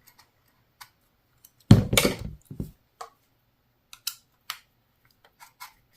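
Scattered small clicks and taps of screws and carbine parts being handled while a screw is test-fitted, with a heavier knock and rustle of handling about two seconds in.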